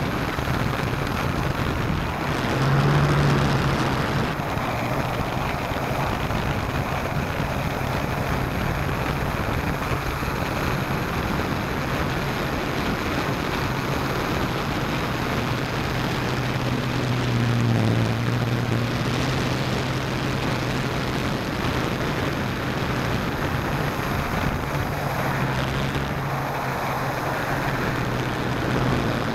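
S650 hexcopter's six electric motors and propellers whirring steadily, heard through its small onboard camera's microphone along with a rush of air noise. The hum swells and shifts in pitch about three seconds in and again around eighteen seconds.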